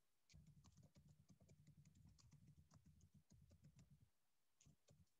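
Faint typing on a computer keyboard: a quick run of key clicks lasting about four seconds, then a few scattered clicks near the end.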